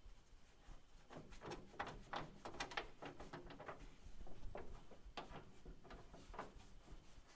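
Faint, irregular light clicks and taps of a small magnetic copper welding backing plate being worked into place behind thin car-body sheet metal.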